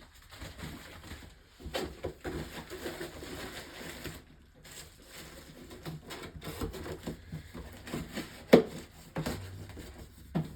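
Hard plastic clicks and knocks of small toy Beyblade stadiums being handled and stacked, with one sharper clack late on.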